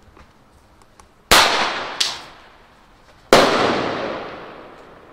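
Bangs of 15 mm fireworks bombettes shot from a blank pistol with a launcher: three sharp reports, about a second in, half a second later, and again over a second after that, each dying away in a long echo.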